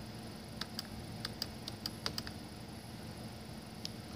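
A quick, uneven run of about ten light clicks, then a single click near the end, from a computer's controls as an on-screen document is scrolled down. A low steady hum runs underneath.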